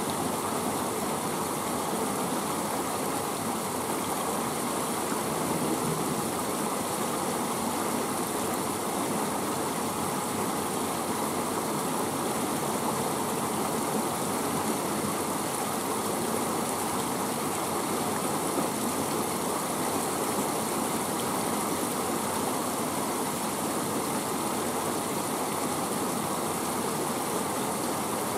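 Steady rushing noise of flowing river water, even and unchanging throughout.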